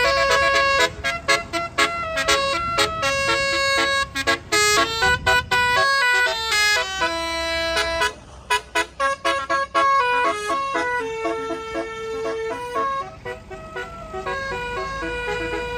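Tour bus 'telolet basuri' musical horn playing a fast tune of short, stepping notes, loud and bright, over the low rumble of the bus's engine.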